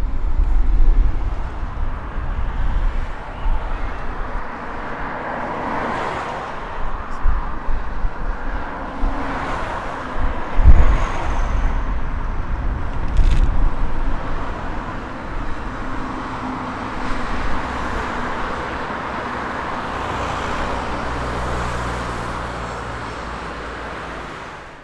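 Steady road traffic noise, swelling and fading as vehicles pass, with a train crossing a rail bridge mixed in. Wind rumbles on the microphone in gusts.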